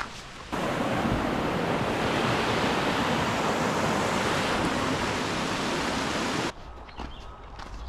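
Loud steady rush of water, starting suddenly about half a second in and cutting off abruptly about six and a half seconds in.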